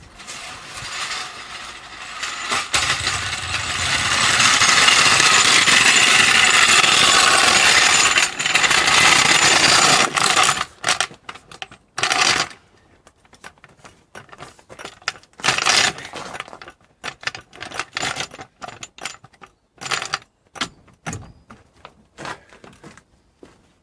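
Power tool, an impact gun, running steadily for about ten seconds while getting louder, then fired in a string of short bursts with pauses between them.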